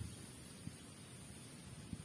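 Faint wind and leaf rustle in a tree canopy, with a low rumble on the microphone and a steady high-pitched hiss, broken by two faint clicks.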